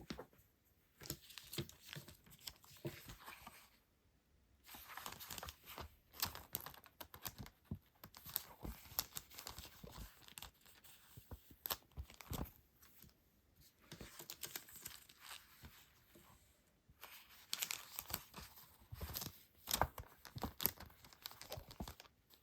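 Paper and plastic packaging being handled and torn open by hand: crinkling and rustling in irregular spurts with a couple of short pauses.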